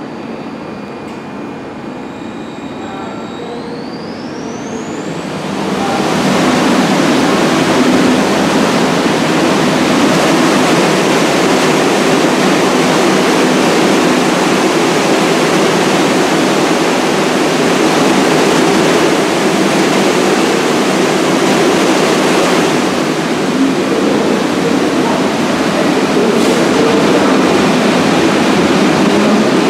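An IRT 1-train subway train running past the platform, a dense steady rumble of wheels and running gear. About five seconds in it jumps to much louder and then stays level.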